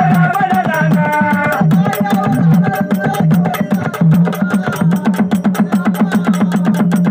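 Gondhal devotional music: fast, steady drumming in an even rhythm of many strokes a second, typical of the sambal pair-drum. A melody line sounds over it for the first second and a half, then the drumming carries on alone.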